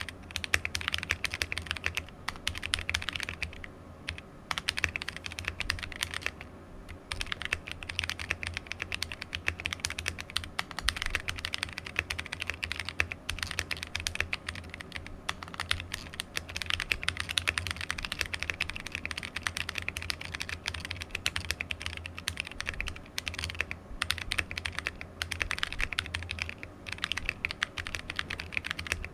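Continuous typing on a plateless 60% mechanical keyboard fitted with stock (unlubed) AEboards Naevy tactile switches: rapid, dense keystroke clacks as the extended-pole stems bottom out on the housing, with short pauses about four and seven seconds in.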